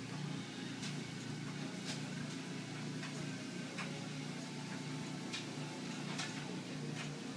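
A cat biting and chewing blades of cat grass: crisp, irregular crunches about once a second, over a steady low hum.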